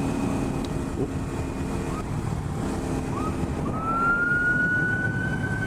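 An emergency vehicle siren, giving a couple of short chirps and then a long wail that rises slightly and holds, over steady motorcycle engine and wind noise.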